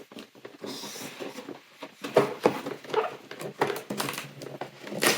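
Handling noise from an advent calendar's packaging being opened and a small toy taken out: crinkling, taps and little clicks, sparse at first and busier from about two seconds in.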